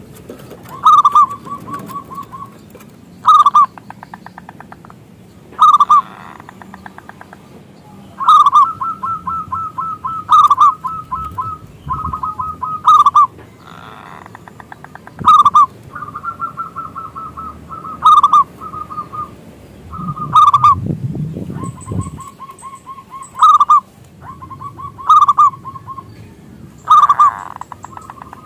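Zebra dove (local perkutut) calling over and over: each call is a loud, clipped coo near 1 kHz followed by a fast run of short repeated notes, about every two to three seconds.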